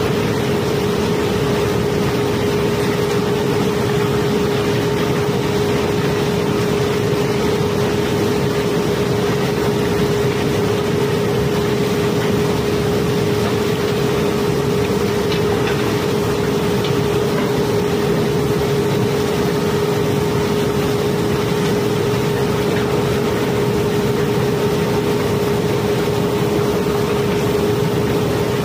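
Steady machinery hum with one constant tone, from a barge's cobblestone-unloading machinery, over an even rush of stones running down through the hold into the conveyor trough.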